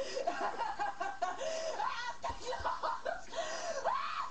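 A person's high-pitched wordless vocal cries, a quick run of short swooping rises and falls in pitch.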